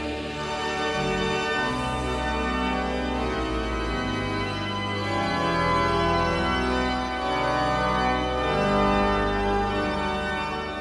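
Background music led by sustained organ chords that change every second or two.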